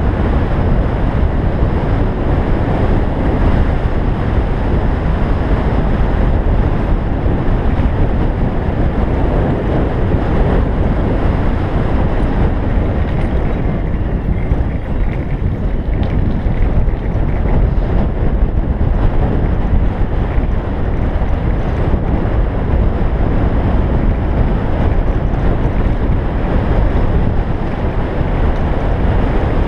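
Wind buffeting the bike-mounted camera's microphone during a fast road-bike descent: a loud, steady rushing roar that never lets up.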